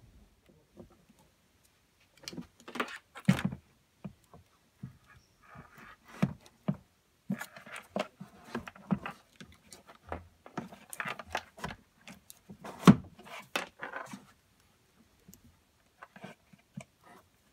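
Replacement batteries and their wire leads being handled and pushed into the plastic battery compartment of a portable PA speaker: irregular clicks, knocks and rustling, with the sharpest knocks about three seconds in and again near thirteen seconds.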